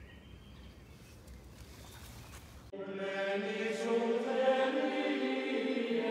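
Faint woodland background, then about two and a half seconds in, music starts abruptly: held, chant-like choir chords that grow slightly louder.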